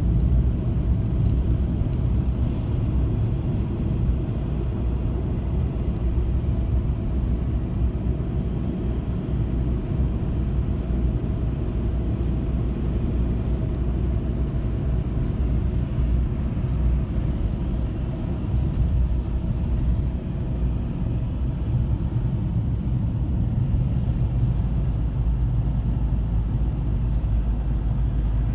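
Car driving on a gravel road, heard from inside the cabin: a steady low rumble of the engine and the tyres on gravel.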